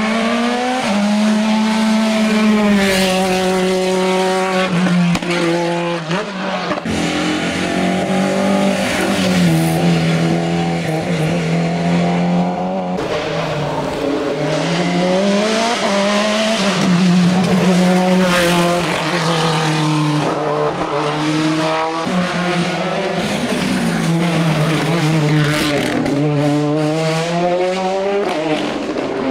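Hill-climb race car engine at full throttle, its pitch climbing with each run up through the revs and dropping back at each gear change or lift, repeatedly over about half a minute.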